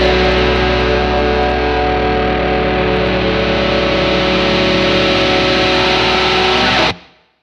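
Alternative rock music ending on a sustained distorted electric guitar chord, which cuts off suddenly near the end.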